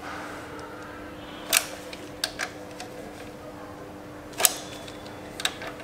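A few sharp metallic clicks from a socket wrench with an extension being fitted to and worked on the 12 mm bolt of a motorcycle's front brake caliper, the loudest about a second and a half in and again past four seconds, over a faint steady hum.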